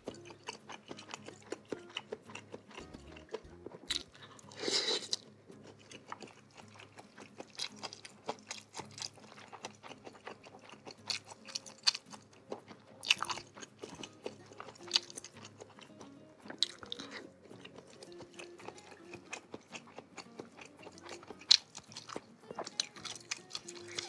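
Close-miked chewing and mouth sounds of someone eating seblak, a spicy dish of softened crackers, noodles, meatballs and sausage. Many small wet smacks and bites come in an irregular run, with a few louder ones, over quiet background music.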